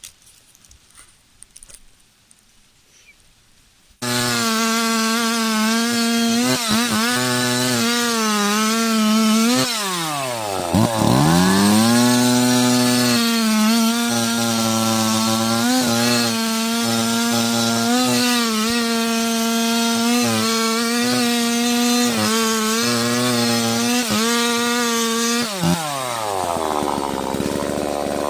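Faint quiet for about four seconds, then a chainsaw starts abruptly at high revs, cutting wood. Its pitch wavers as the chain bites, dips deeply and climbs back up about ten seconds in, and drops away again near the end as it comes off the throttle.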